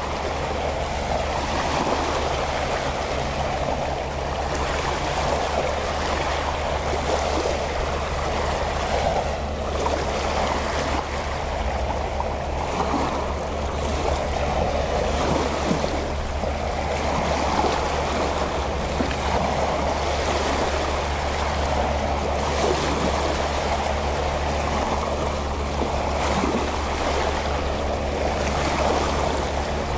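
Small waves lapping and splashing against the shore, swelling and ebbing every few seconds, over a steady low hum of a distant boat motor.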